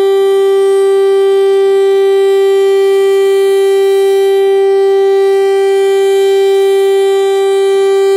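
Federal Signal STL-10A outdoor warning siren sounding its full-alert signal: one loud, steady tone held at a constant pitch, without rising or falling.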